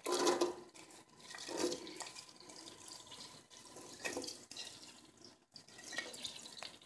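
Chopped onions dropped into hot oil in a pot, sizzling faintly in several short bursts as more are scraped off a plate, the first burst the loudest.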